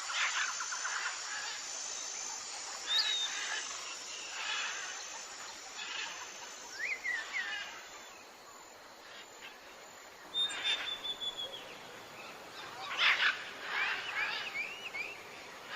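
Birds chirping and calling over steady outdoor background noise: short trills, whistled notes and quick rising and falling sweeps at irregular intervals, a cluster of them about 13 to 15 seconds in.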